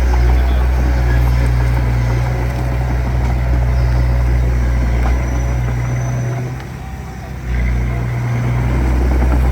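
Diesel engine of a small bulldozer running steadily under load, easing off for about a second roughly two-thirds of the way in before picking up again.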